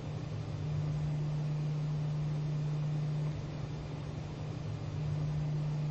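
Steady low electrical hum with an even hiss underneath, dipping slightly in level about three seconds in; no other sound stands out.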